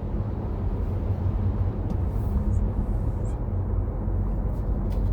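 Steady low road rumble inside the cabin of a BMW F07 5 Series GT 20d on the move: tyre and engine noise.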